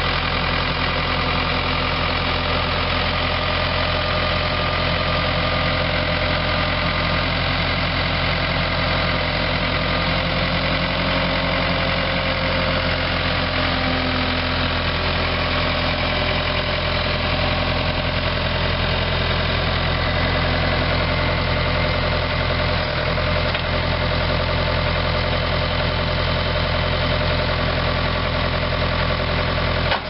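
Case four-cylinder diesel engine of a 1996 Case 1845C skid steer running steadily while the machine is driven and turned.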